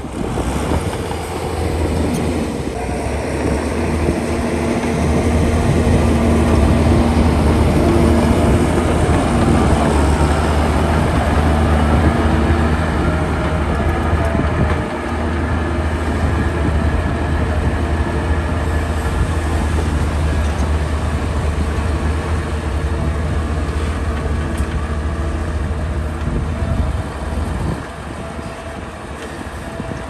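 Bulldozer's diesel engine running hard as the machine works, a steady low drone that drops in level near the end.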